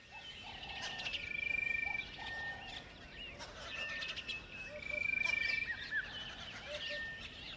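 A chorus of wild birds calling and chirping, with a rapid, high trill rising out of it twice, about a second in and again about five seconds in.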